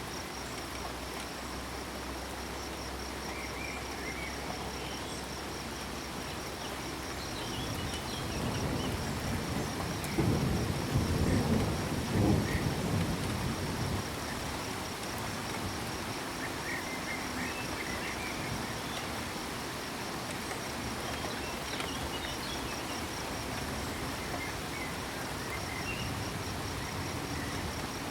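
Steady rain with a continuous fast-pulsing cricket trill and scattered frog calls. A roll of thunder swells about eight seconds in, is loudest a few seconds later, and rumbles away about six seconds after it began.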